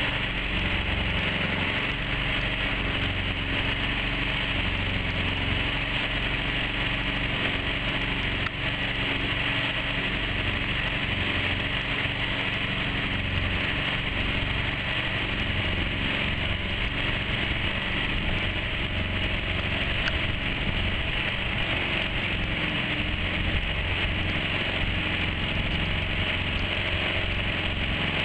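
Bawad mud-motor (surface-drive outboard) engine running steadily at a constant speed, with no change in pitch.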